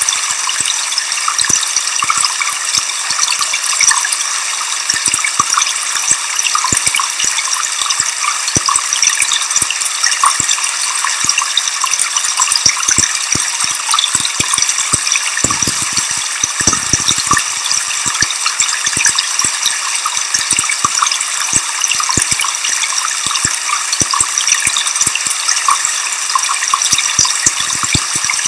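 Waterfall: a steady rush of falling water with many small splashes and drips, sitting high in pitch with hardly any low rumble.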